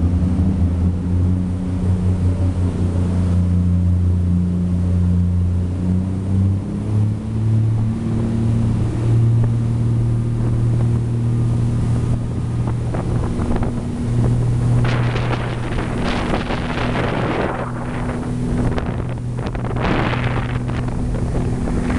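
Pilot boat's diesel engines running under way, the engine note stepping up in pitch about a third of the way through as the boat speeds up. Rushing water and spray from the hull, with wind on the microphone, grow loud in the second half.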